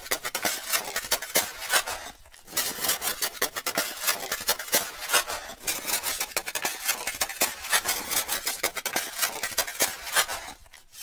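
Snow and ice crunching and scraping as a mass of it breaks loose and slides off a roof. It is a dense, rough crackle with a short lull about two seconds in.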